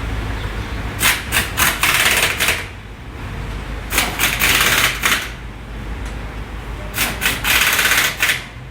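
Pneumatic impact wrench rattling in three bursts of about one to two seconds each, running the lug nuts of a car wheel during a tire rotation.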